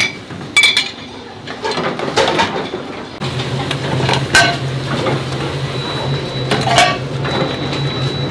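Stainless steel bowls and dishes clinking and clattering as they are handled and stacked into a dish rack at a sink. A steady low hum comes in about three seconds in and runs on under the clinks.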